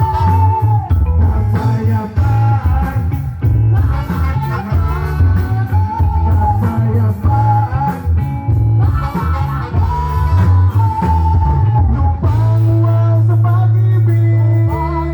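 Rock band music with guitar over a heavy bass line, a bending lead melody on top. Near the end a low note is held steady for a few seconds.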